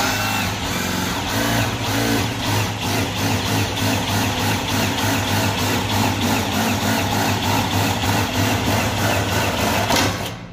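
Cordless drill running steadily under load as its bit bores the lock hole through a door, with a low motor hum and a faint even pulsing from the cut; it stops near the end.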